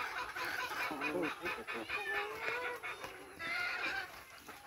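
Chickens clucking and calling as they feed on halved coconuts, with one longer call near the middle and a higher call later. Short taps of beaks pecking at the coconut flesh and the ground come through under the calls in the first half.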